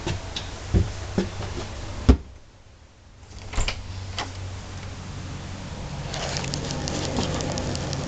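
Scattered knocks and thumps, the loudest about two seconds in, from someone moving through a travel trailer's narrow hallway and doorways with a handheld camera. A rustling, crackling handling noise follows in the last couple of seconds.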